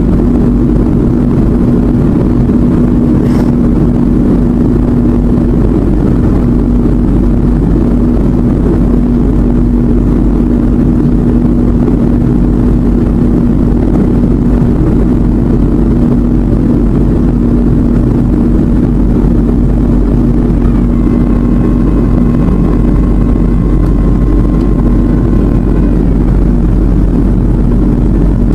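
Airliner cabin noise heard from a window seat over the wing: the jet engines and airflow make a loud, steady drone with a constant low hum. About three-quarters of the way through, a faint higher whine comes in for about five seconds.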